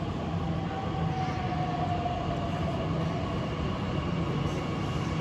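DB Class 442 Talent 2 electric multiple unit drawing in: a steady electric hum, and about a second in a faint whine that slides slightly down in pitch.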